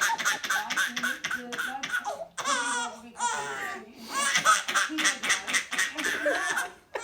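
Four-month-old baby laughing in short, repeated high-pitched bursts of giggles and squeals.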